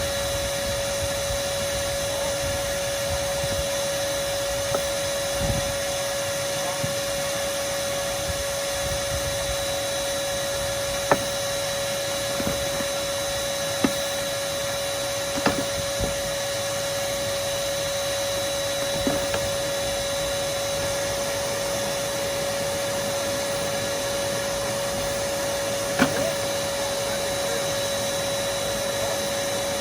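An electric motor runs at a constant speed with a steady whine, and a few light knocks break in now and then.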